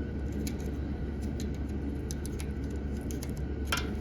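Light metallic clicks and a short scrape from a feeler gauge being worked in and out of a small engine's ignition points gap, with one sharper click near the end, over a steady low hum.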